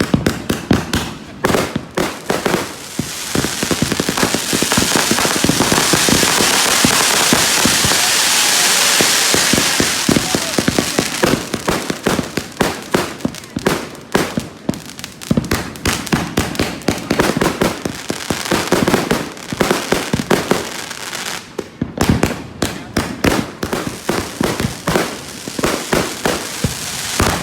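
Fireworks display: a dense barrage of rapid crackling pops and bangs. Between about 3 and 11 seconds in it thickens into a near-continuous loud crackle, then breaks back into quick separate pops.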